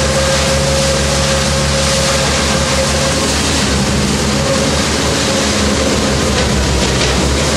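Large tractor-driven straw blower running at full speed, its fan throwing chopped straw out through the discharge spout: a loud, steady rush of air and straw with a steady whine over a low drone.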